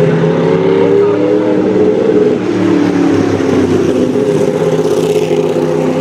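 Sauber-Mercedes C9 race car's twin-turbo V8 running loud and steady, its note sagging in pitch over the first few seconds and climbing again near the end.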